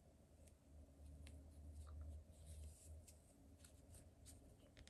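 Near silence: a faint low hum with a few soft ticks and rustles of crochet yarn being handled.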